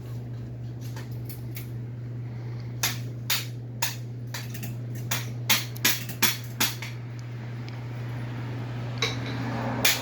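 Metal scrap being hammered and broken apart: about ten sharp, irregular metallic knocks between about three and seven seconds in, over a steady low hum.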